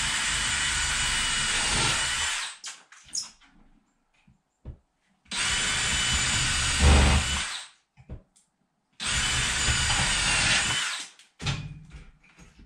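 Power drill driving long structural screws through the lift frame into the wall studs, in three runs of about two and a half seconds each, with small knocks between them.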